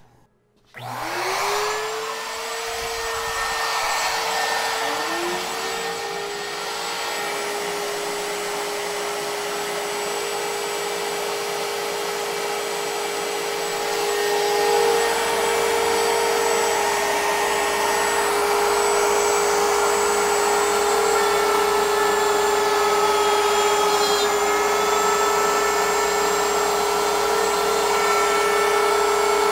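Router on a CNC router table spinning up to speed, with a second motor hum rising to a slightly lower pitch a few seconds later. Both then run as a steady whine while the bit cuts a slot in plywood, a little louder about halfway through.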